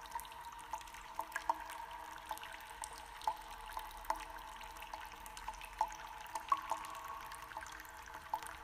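Water drops plinking at an irregular pace, about two a second, over soft steady tones.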